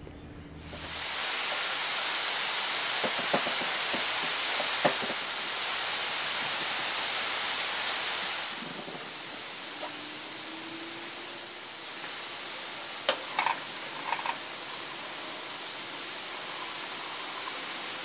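A steady, even hiss that drops in level about eight seconds in, with a few short knocks and clinks scattered through it.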